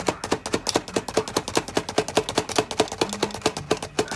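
Hand-operated Progressive food chopper being worked fast on onion: a rapid, even run of sharp clacks, about six or seven a second, as the blades cut.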